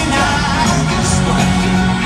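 Live pop band playing loudly in a large arena, heard from the audience in the stands, with a heavy bass.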